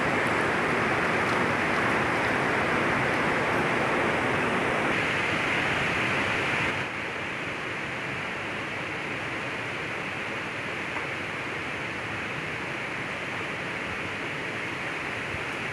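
Fast-flowing river water rushing steadily, a dense even hiss that drops a little in level about seven seconds in.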